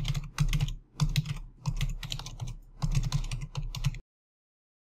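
Computer keyboard typing in quick bursts of keystrokes with short pauses between them, stopping abruptly about four seconds in.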